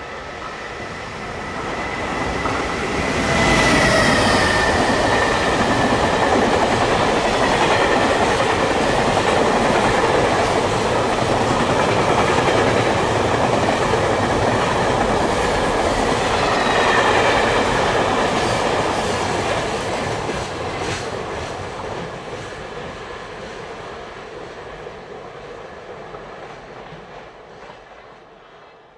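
A JR Freight container train hauled by an EF510 electric locomotive passing close by on the track. It builds over the first few seconds as the locomotive arrives. The rail noise of the wagons stays loud for about fifteen seconds, then fades steadily as the train draws away.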